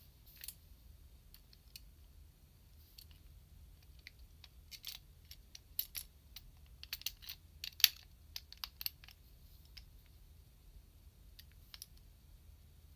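Small plastic parts of a toy shark figure clicking and tapping as it is handled and folded into its arm form: a few light clicks at first, then a dense flurry of snaps and taps in the middle with one sharp louder snap, thinning out toward the end.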